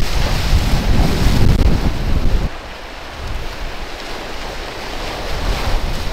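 Storm wind buffeting the microphone over the noise of breaking sea surf. The wind rumble drops sharply about two and a half seconds in, then builds again near the end.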